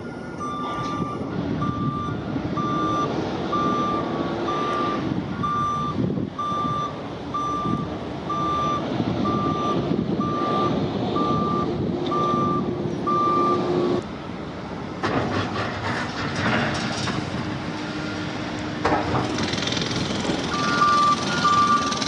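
Construction vehicle's backup alarm beeping about once a second over steady machinery noise. The beeping stops about two-thirds of the way through and starts again near the end.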